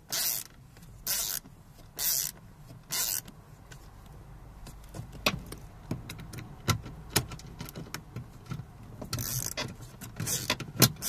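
Hand screwdriver turning screws at the plastic door pull handle of a Renault Clio 1 door panel. There are four short scraping twists about a second apart at first, then scattered sharp plastic clicks and taps, and more scraping near the end.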